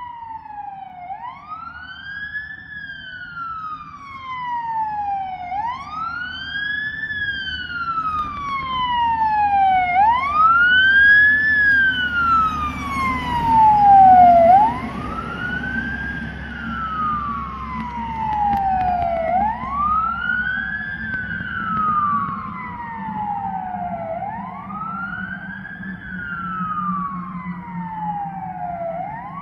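Scania G440 fire engine on an emergency run, its siren wailing in slow cycles, each a quick rise and a longer fall, about every four and a half seconds. The truck approaches, passes and moves away, and its diesel engine's rumble swells loudest as it goes by about 13 seconds in.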